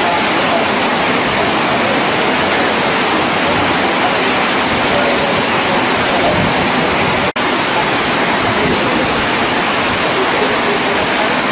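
Loud, steady hiss of rushing noise, even across high and low pitches, that cuts out for an instant about seven seconds in.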